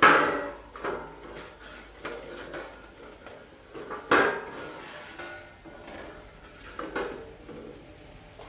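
Metal parts and tools knocking and clattering as they are handled: two sharp clanks about four seconds apart, with lighter knocks between.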